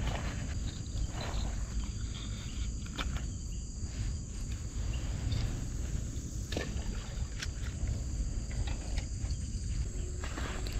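Steady high-pitched chirring of insects, with scattered short clicks and knocks and a low rumble underneath.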